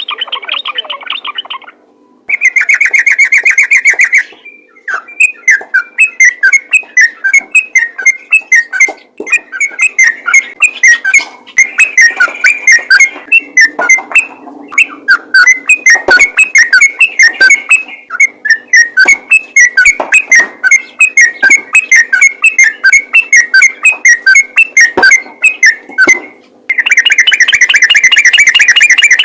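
Yellow-vented bulbul (trucukan) singing a fast, continuous 'ropel' song, loud: long runs of rapid short chirping notes, broken by dense buzzy trills near the start, a few seconds in, and again near the end.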